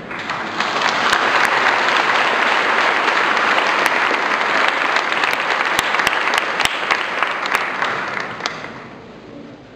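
Church congregation applauding, swelling in the first second and fading away near the end, with a few sharp single claps standing out.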